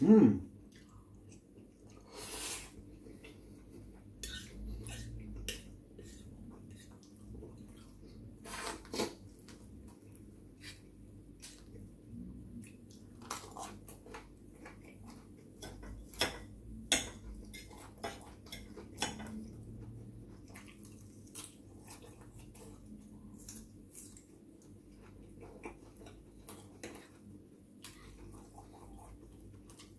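A metal fork clinking and scraping on a ceramic plate while ravioli is eaten, in many scattered sharp clicks with chewing and slurping between them. A short, loud sound falling in pitch comes right at the start.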